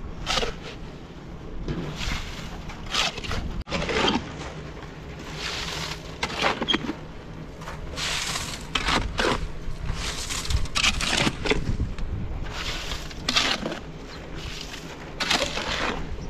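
Long-handled shovel scraping and scooping wet concrete and ramming it down into a block column's formwork: irregular scraping strokes, roughly one a second.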